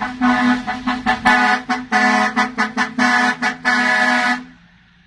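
Dump truck horn honked in a quick rhythmic pattern of short toots and longer blasts over a steady lower tone, ending with a longer blast about four seconds in. A low engine rumble runs underneath at the start.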